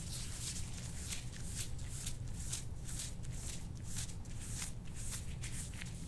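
Soft-tissue scraping tool drawn over oiled skin in repeated short strokes, about two a second.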